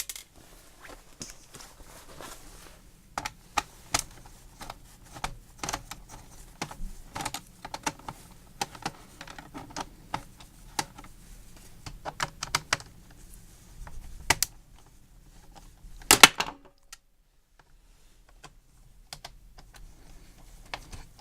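Irregular plastic clicks and clatter from an HP computer keyboard being handled while its case screws are taken out with a screwdriver, with a louder clatter about 16 seconds in.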